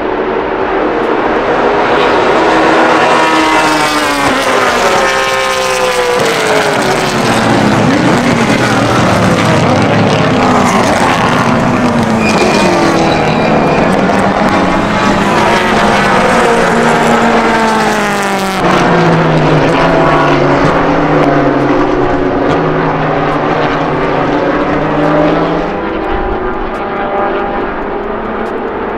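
Time attack race cars' engines revving hard as several cars pass on the track one after another. The engine pitch climbs through the gears and drops away as each car passes or brakes, with several cars often heard at once.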